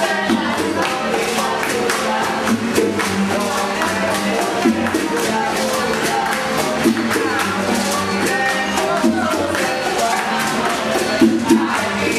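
A small Cuban band playing live: strummed acoustic guitars and a flute, a woman singing, and hand percussion keeping a fast, steady beat.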